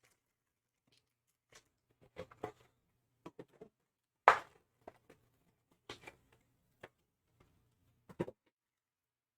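Handling noise as a sealed box of hockey trading cards is opened: scattered crinkles, scrapes and taps of packaging, with one louder sharp sound a little past four seconds in.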